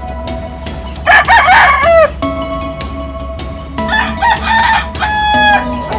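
Gamecocks (fighting roosters) crowing: one loud crow about a second in and another about four seconds in, each dropping in pitch at the end.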